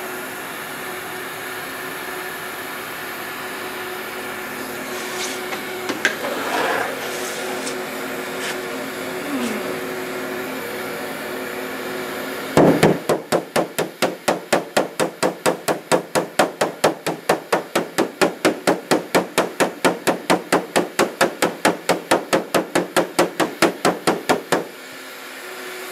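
Steady hum of a heat gun warming a dented aluminum car hood. About halfway through, rapid, even hammer taps on the hood begin, about four a second, as the dents are worked out; taps and hum stop shortly before the end.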